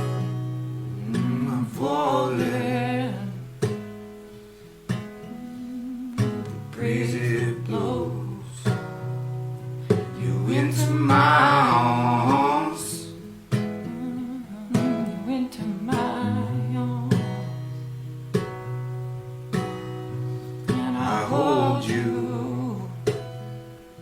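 An acoustic guitar played in chords, with a singing voice coming in for four short phrases over it.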